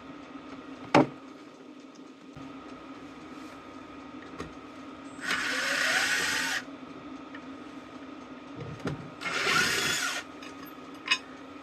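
A power drill-driver runs in two short bursts of about a second each, working on the screws of a vintage fire bell's housing. About a second in there is a single sharp click.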